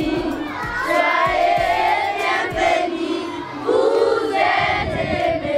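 A group of schoolchildren singing together in unison, holding long notes that change pitch every second or so.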